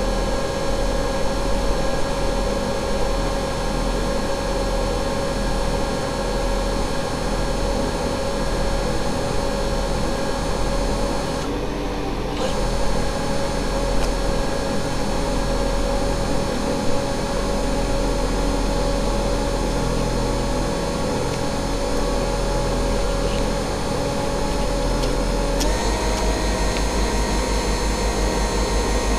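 The drive motors of a six-foot radio-controlled model ship whine steadily, picked up on board, over a low rumble of wind on the microphone. The whine dips briefly about twelve seconds in and steps up in pitch near the end, as the throttle changes.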